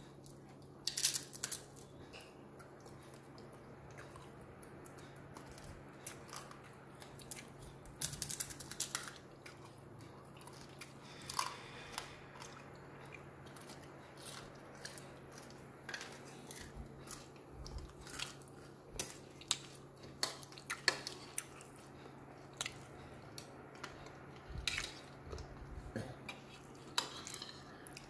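Eating sounds: a crisp cracker being bitten and chewed with short crunches, and a spoon and fork clinking and scraping against a plastic bowl of noodles. The sharp crackles come in scattered clusters, with no steady rhythm.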